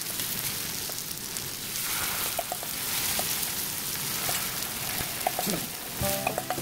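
Starch-coated sweet potato matchsticks sizzling steadily as they shallow-fry in a little oil in a frying pan.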